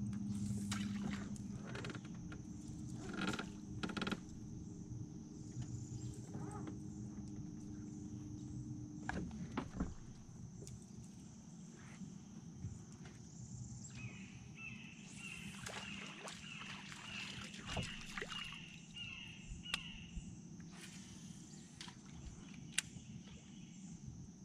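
Outdoor river ambience: a steady high-pitched insect chorus, with a bird calling a rapid run of repeated notes for several seconds about halfway through, and scattered sharp clicks and knocks.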